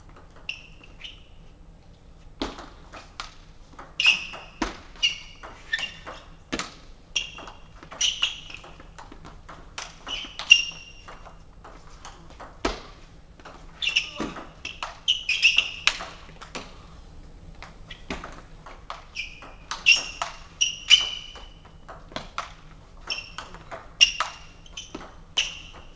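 Table tennis ball clicking off the table and the players' rubber-covered bats, several quick hits a second in a series of short rallies with brief pauses between points.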